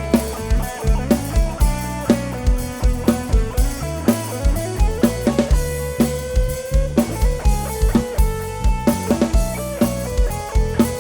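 Instrumental break of a live Isan luk thung band on a rot hae sound truck: electric guitar melody over a drum kit and heavy bass kick drum, with a steady, fast beat.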